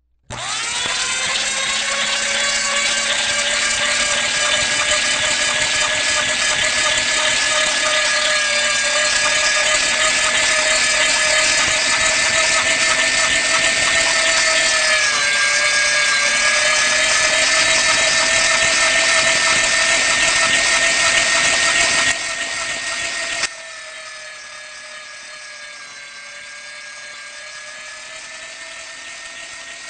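Electric meat grinder switched on and running with a steady motor whine. The pitch dips briefly about halfway through, and near the end the sound steps down to a noticeably quieter level while the motor keeps running.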